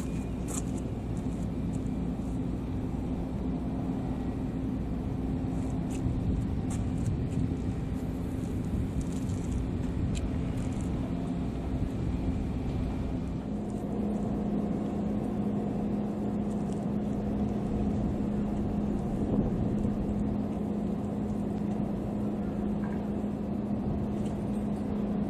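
An engine running steadily: a low rumble with a constant hum that steps down slightly in pitch about halfway through.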